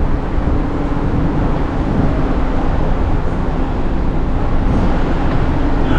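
Wind buffeting a handheld camera's microphone on an open upper deck of a cruise ship: a loud, steady rushing noise heavy in the low end, with a faint steady hum beneath it.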